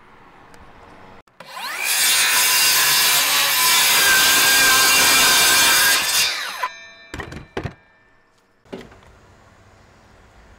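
Circular saw spinning up about a second and a half in, cutting through an OSB board for about five seconds, then winding down with a falling whine. Two sharp knocks follow.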